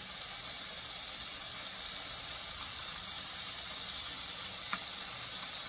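Flour-coated chicken livers deep-frying in hot oil: a steady sizzling hiss, with one faint click near the end.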